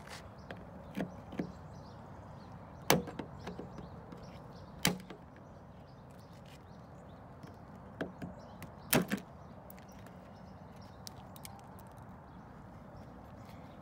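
Plastic retaining clips on a Dodge Charger's spoiler mounting bracket snapping and clicking as they are pried and broken out with a screwdriver and pry bar. There are a handful of sharp, irregular snaps, the loudest about three, five and nine seconds in, with lighter tool clicks between.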